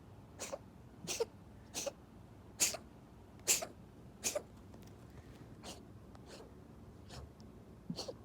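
A munchkin kitten reverse sneezing: a run of about ten short, sharp breaths pulled in hard through the nose, roughly one every three-quarters of a second. They are strongest in the first half and grow weaker towards the end.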